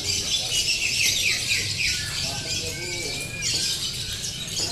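Several caged songbirds singing at once in rapid chirps and trills, with a quick run of falling notes about a second in.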